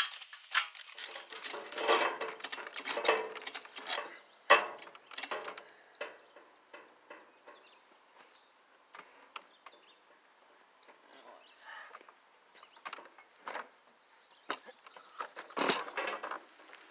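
Scattered clinks and knocks of rigging being handled: the lifting chain and sling on an engine crane's hook rattling against the lathe and its pallet. They come in quick clusters at first, thin out in the middle and pick up again near the end.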